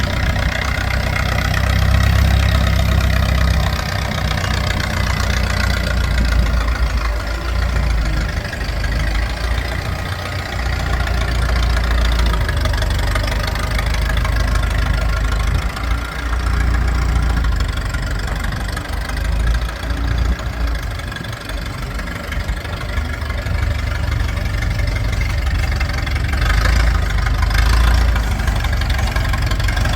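Massey-Ferguson 30 industrial tractor-loader-backhoe engine running, its level swelling and easing a little over the half minute.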